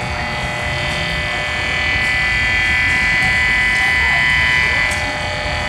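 Electronic buzzing hum of a lighting store's lamps and their power supplies, picked up by a small solar panel feeding an audio amplifier: a dense chord of steady tones that grows a little louder about two seconds in.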